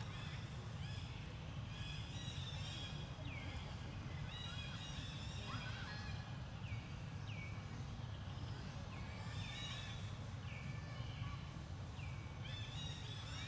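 Repeated short, high-pitched animal calls, each falling in pitch, over a steady low rumble.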